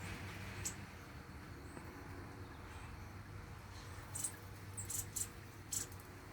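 A young bird's short, high-pitched cheeps, a handful of brief squeaks, once about a second in and then several between about four and six seconds in, the begging calls of a fledgling that still wants its father to feed it. A low steady hum lies underneath.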